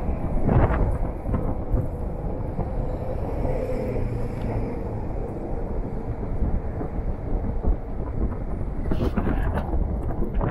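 Wind buffeting an outdoor handheld microphone: a steady, rough low rumble.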